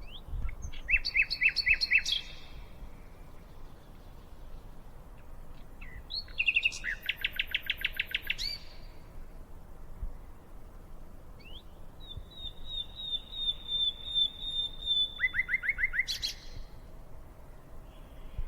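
Birds singing in three bursts of rapid repeated chirps: one about a second in, one around six to nine seconds in, and a longer run from about twelve seconds that ends in a quick trill.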